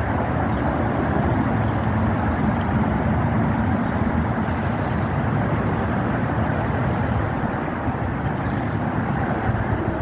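Wind buffeting the phone's microphone: a steady low noise with no distinct calls or strikes.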